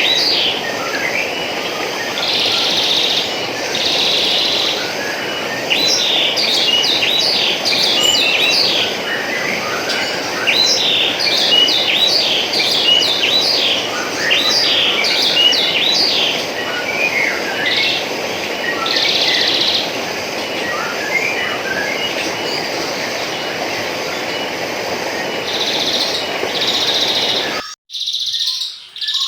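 Steady trickling water with many small birds chirping and calling over it in quick, overlapping bursts. Near the end the water sound cuts off suddenly, leaving only the bird calls.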